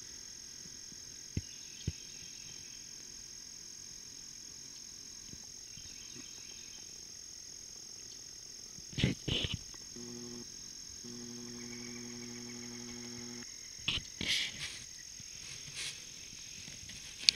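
Steady high-pitched chorus of insects, with a few short clicks and rustles and a low mechanical hum lasting a few seconds past the middle.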